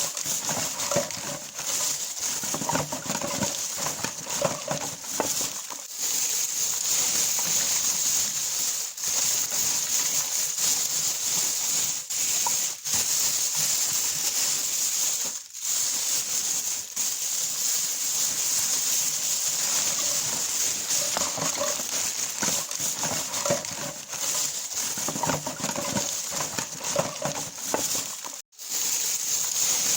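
Plastic bag rustling and crinkling as it is handled and opened, a continuous crackly hiss broken by a few abrupt short gaps.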